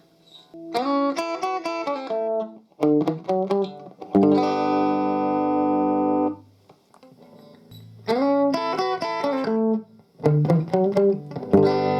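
Electric guitar played through a guitar amp: a quick run of picked notes, then a chord left to ring for about two seconds. The same phrase comes again and ends on another ringing chord.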